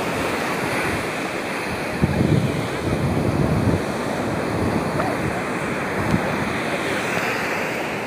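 Steady rush of surf on a beach mixed with wind on the microphone, with heavier low wind buffeting for a couple of seconds about two seconds in.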